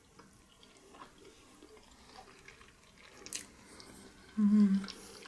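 A person chewing a bite of soft, dense cassava cake, with faint wet mouth clicks, then a short closed-mouth 'mmm' hum about four and a half seconds in.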